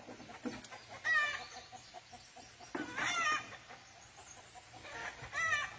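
Chickens clucking: three short calls about two seconds apart.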